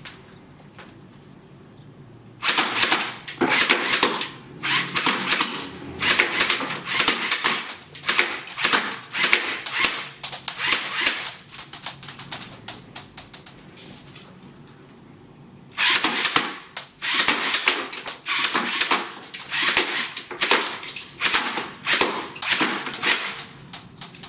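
Low-power airsoft submachine gun replica firing in rapid bursts of sharp clicking shots. The firing starts a few seconds in, stops for about two seconds midway, then resumes in more bursts.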